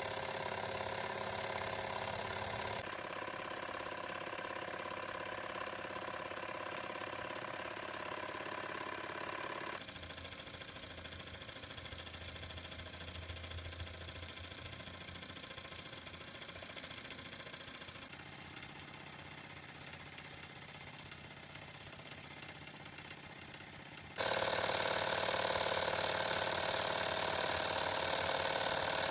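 Wilesco D222 electrically heated twin-cylinder model stationary steam engine running steadily. The sound changes abruptly in level about 3, 10, 18 and 24 seconds in, and is loudest over the last few seconds.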